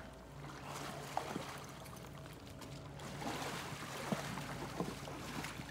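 Gypsy Vanner horses wading through a shallow river: water sloshing and splashing around their legs, with scattered small splashes.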